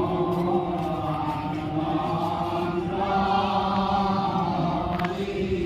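Assamese devotional naam chanting by a group of seated devotees, their voices together in long drawn-out phrases.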